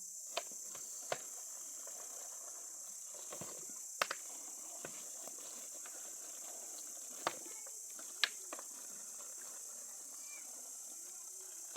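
A few sharp, isolated clicks or knocks, irregularly spaced, over a steady high-pitched hiss or drone.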